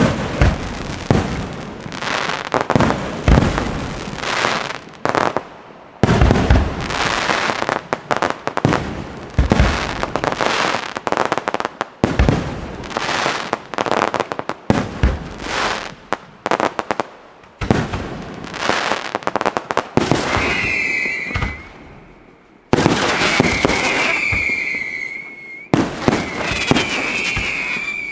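Fireworks display: a rapid barrage of loud bangs from bursting shells, with crackling between them. From about twenty seconds in, shrill whistling fireworks join, each holding a wavering high pitch over the bangs.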